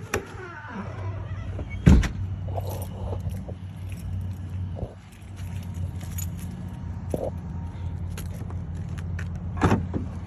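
Car engine running steadily at idle, with a loud thump about two seconds in and another near the end, and small jingling clicks of keys.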